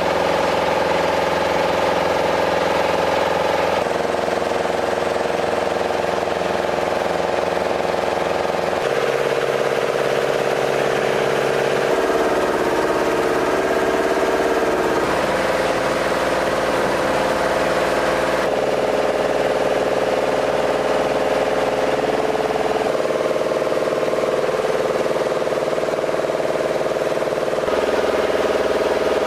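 A steady engine or machine running, its tone changing abruptly every few seconds.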